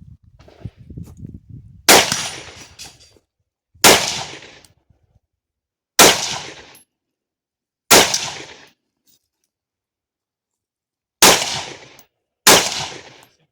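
Six single shots from a carbine, about two seconds apart at first and the last two about a second apart, each ringing out briefly after the crack. Some low rustling is heard before the first shot.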